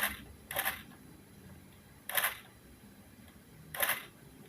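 Nikon D80 DSLR shutter clicking four times, the first two close together, then two more spaced out. The Godox TT600 speedlight on the camera is not firing with the shots: a misfire.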